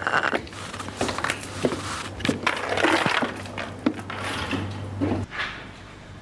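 A string of sharp clicks and knocks with rustling in between, over a low hum that stops a little after five seconds in.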